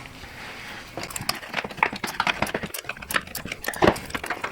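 A series of irregular light knocks and clicks, starting about a second in, with the sharpest knock near the end.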